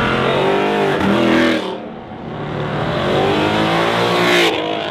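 Two cars accelerating hard past at full throttle: the first engine's pitch falls away over the first second and a half, then a Ford Mustang's engine revs up with rising pitch and cuts off sharply near the end.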